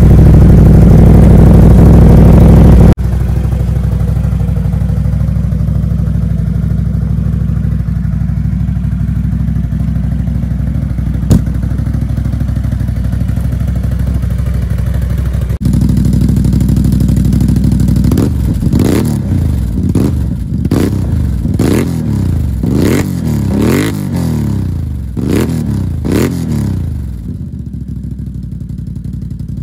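Can-Am Outlander 850 XMR's V-twin engine running through a dual Empire aftermarket exhaust: idling steadily, then, a little past halfway, revved in a quick series of about a dozen throttle blips, each rising and falling, before dropping back to idle near the end.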